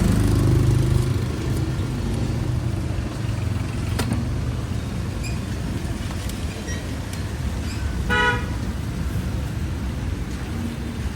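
Road traffic running steadily, heaviest for the first second or so as a vehicle passes close, with a single short horn beep about eight seconds in.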